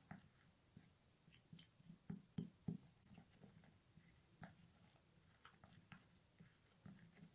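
Faint, irregular clicks and scrapes of a wooden stirrer against a small glass bowl as a thick paste is mixed, the loudest taps a little over two seconds in.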